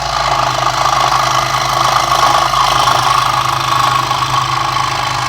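Central Machinery 16-inch scroll saw running steadily, its motor humming and blade stroking up and down as it cuts through thin plywood.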